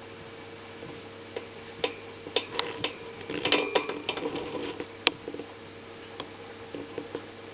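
Scattered light clicks and taps, thickest a little before the middle, with one sharp click about five seconds in, over a steady low hum.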